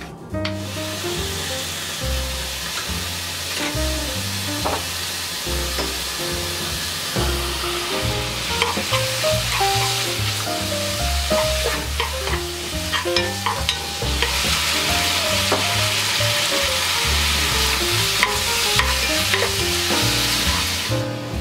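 Diced pork sizzling as it stir-fries in a pot, with a wooden spatula scraping and knocking against the pot in scattered clicks. The sizzle grows louder about two-thirds of the way through.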